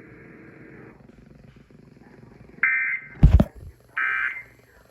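Emergency Alert System end-of-message code from a radio: short bursts of the buzzy two-tone SAME digital signal, two of them about a second and a half apart, with a loud thump between them. Faint radio hiss before the first burst.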